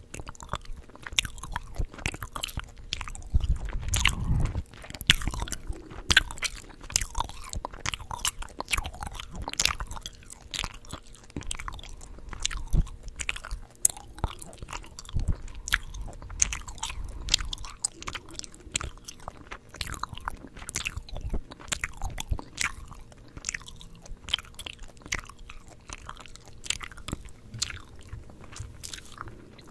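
Chewing gum close to the microphone: a dense, irregular run of wet mouth smacks and clicks, several a second. A low rumble swells under it about four seconds in and again around the middle.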